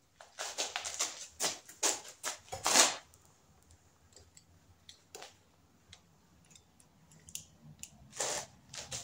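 A bar-end mirror mount being pushed and twisted into the end of a motorcycle handlebar, making a quick run of short scrapes and clicks over the first three seconds, then scattered light ticks and another short scrape near the end.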